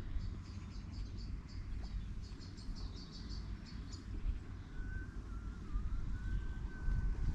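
A small bird chirping in quick runs of repeated high notes for the first few seconds, over a steady low outdoor rumble. A fainter wavering whistle follows in the second half.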